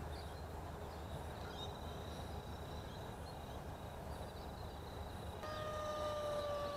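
Faint open-air ambience with a steady low rumble. About five seconds in, the whine of a small electric RC plane's motor and propeller comes in and falls slightly in pitch as the plane makes a fast, low pass.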